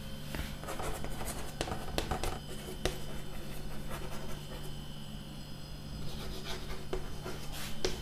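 Chalk writing on a chalkboard: scattered short taps and scratches of the chalk as words are written, over a faint steady hum.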